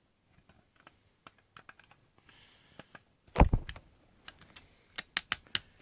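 Small clicks and taps of a spring-powered airsoft pistol's parts and a screwdriver being handled during disassembly. About three and a half seconds in there is one louder knock with a short clatter, followed by a quick run of sharp clicks.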